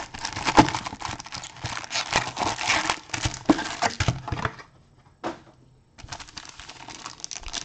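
Foil-wrapped trading card packs and the box's foil lining crinkling and rustling as the packs are lifted out of a cardboard box and set down. The handling stops briefly about two-thirds of the way through, then quieter rustling resumes.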